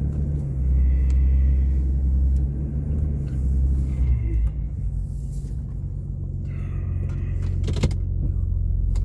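2005 Jeep Liberty reversing with a cold engine, heard from inside the cabin as a steady low rumble. A faint high whine comes and goes over it several times: the binding noise that started after new brake discs and pads, apparently from the rear. A single sharp click comes just before the end.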